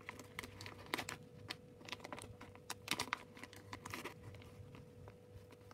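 Punch needle threaded with yarn being pushed repeatedly through tightly woven fabric, giving a faint run of short, irregular clicks and light fabric rustle.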